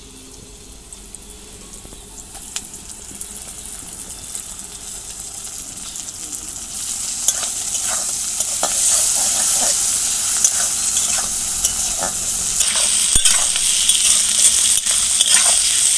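Onions frying in hot oil in a kadai, sizzling while a spatula stirs and clinks against the pan. The sizzle swells sharply about seven seconds in and keeps getting louder.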